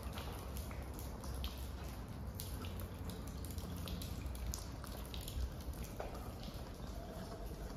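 Irregular light drips and taps in a damp stone tunnel over a steady low rumble, with water dripping and steps on the wet floor.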